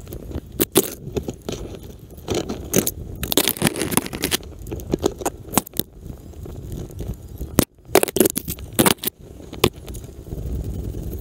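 A climber moving through cherry tree branches: irregular sharp clicks and rustles of twigs brushing and cracking, with metal climbing hardware clinking. The clicks come in flurries, busiest about three to four seconds in and again around eight to nine seconds.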